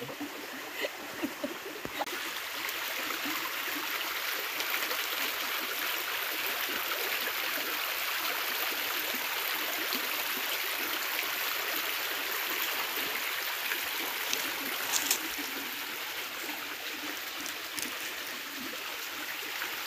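River water flowing: a steady rush of water, slightly louder in the middle, with a few faint clicks on top.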